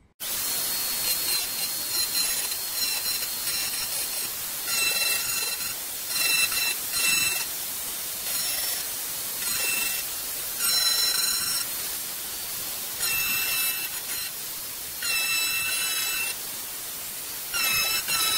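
Electric grinder grinding the paint off the steel front wing of a classic Mini to take away bubbles in the paint and the rust beneath them. It makes a steady grinding hiss, and a higher whine comes and goes several times.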